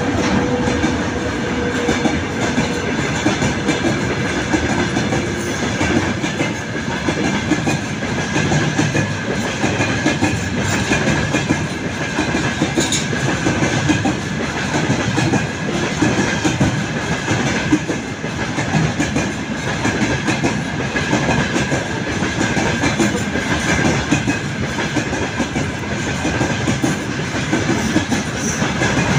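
Work train's flatcars, loaded with track panels, rolling steadily past close by: wheels rumbling and clicking over the rail joints, with a thin steady high ring running through it.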